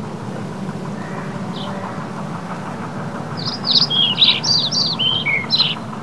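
A small bird gives a single chirp, then about three and a half seconds in a quick run of high chirping song notes that lasts about two seconds. A steady low rumble runs underneath.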